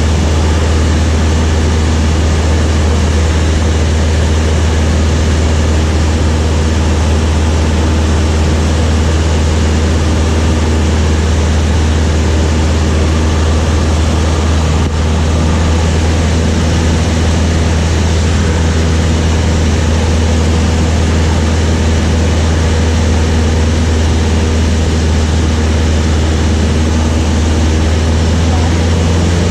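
Light propeller aircraft's piston engine droning steadily in flight, a loud constant hum with steady overtones.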